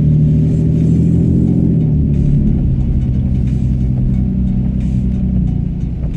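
Low, steady rumble of a car driving, with music playing underneath.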